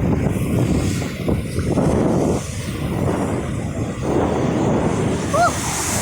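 Steady rushing noise of ocean surf and wind buffeting the microphone on the beach, with a short rising-and-falling call about five seconds in.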